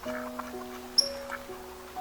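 Background music: a slow melody of held notes, with a short sharp high tick about a second in.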